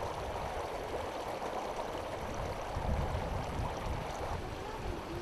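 Steady rushing outdoor noise with an uneven low rumble underneath.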